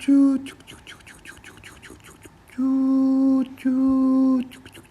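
Brio toy train sounding a steady, flat-pitched horn in toots: a short one at the start, then two long ones near the middle. Between the toots come fast, even clicks, typical of the train's wheels running over the joints of wooden track.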